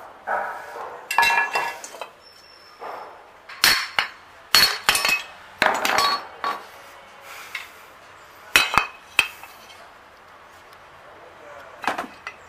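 Metal engine parts clinking and knocking as two-stroke crankcase halves and shafts are handled on a hard floor. The sharp metallic knocks each ring briefly; they come in clusters around a second in, from about three and a half to six and a half seconds in, and again near nine seconds, with a last one near the end.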